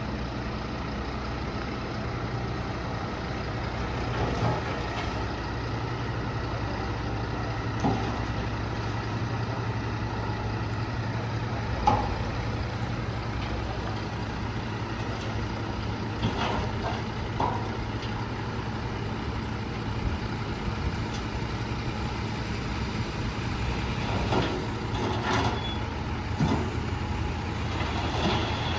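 Heavy diesel vehicle engine running steadily with a low drone, with scattered knocks and clanks: a sharp one about twelve seconds in and several more in the second half.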